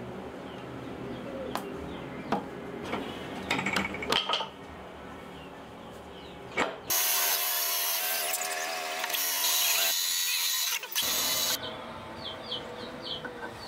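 Light knocks and clicks as the parts of a wooden bench vise are handled. About seven seconds in, a loud power tool runs for about four seconds, then cuts off sharply.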